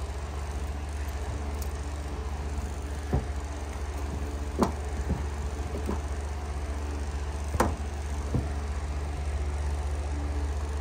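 Comforter being shifted around by hand inside a clothes dryer drum, with several short knocks and bumps against the drum, over a steady low machine hum.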